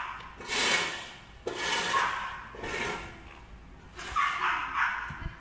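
A dog barking and yelping in a series of short calls, about one a second.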